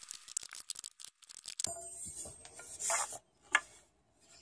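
A metal hand tool working a fastener on a wooden tiller's fitting: many small rapid clicks, then a sharp knock about a second and a half in, followed by scraping and rubbing as the tiller is handled, with another knock near the end.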